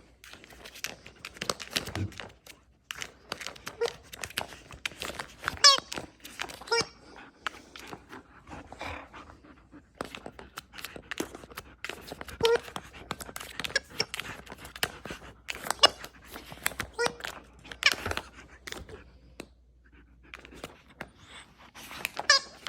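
A Siberian husky playing with a Wobble Wag dog toy: irregular knocks and rattles, panting, and a few short high-pitched sounds.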